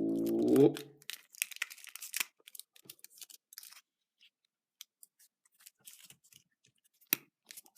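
A Kinder Surprise egg being opened by hand: a dense run of small crinkles and clicks for a couple of seconds, fitting its foil wrapper and plastic capsule. Then sparse faint ticks and one sharp click near the end. It opens with a drawn-out "Ooh".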